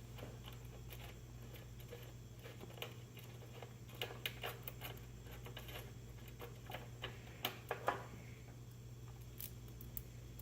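Faint, irregular clicks and taps of hands working on wiring and small hardware, busiest in the middle, over a steady low hum.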